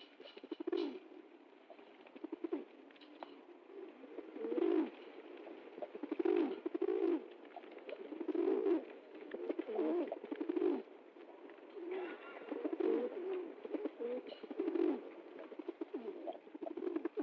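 Pigeons cooing, several low rolling coos repeating every second or two, with faint scuffling clicks between them.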